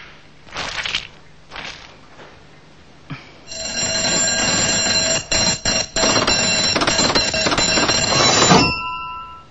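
A few soft clattering knocks, then from about three and a half seconds in a bell ringing rapidly and continuously, like an alarm clock, for about five seconds, with a few brief breaks, before it dies away near the end.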